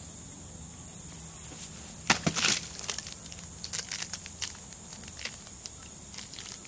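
Twigs and brush rustling and crackling, with a short louder burst of crackles about two seconds in and scattered light ticks, over a steady high hiss.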